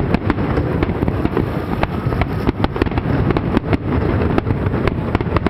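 Fireworks display: aerial shells bursting in quick succession, many sharp bangs a second over a continuous low rumble.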